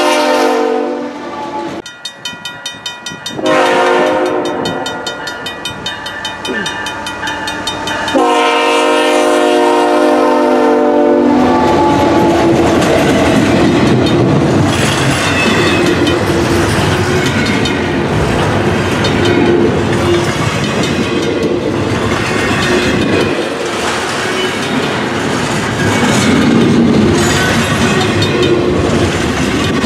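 CN freight locomotive's air horn sounding in blasts: one ending just after the start, a longer, softer one after a short break, then a loud blast of about three seconds. After that, double-stack container cars roll past with a steady rumble and a regular clickety-clack of wheels over rail joints.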